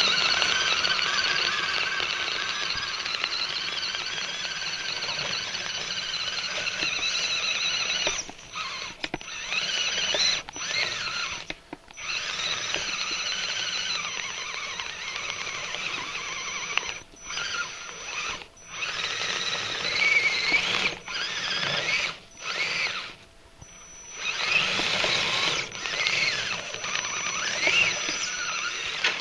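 High-pitched whine of a radio-controlled crawler's electric motor and gear drivetrain turning its snow tracks, the pitch wavering with speed as it drives through snow. In the second half the throttle is let off and reapplied several times, with short breaks in the whine.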